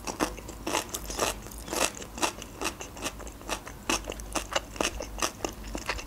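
Close-up chewing of a fresh cucumber, heard as a string of sharp, irregular crunches, about two or three a second.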